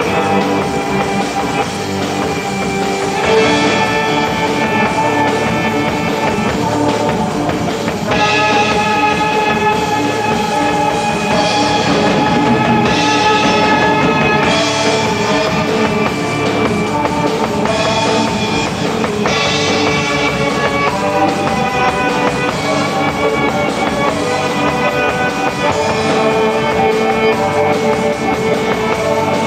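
A small band playing live: a drum kit keeps time under held melodic notes that change every few seconds, with a bowed cello among the instruments.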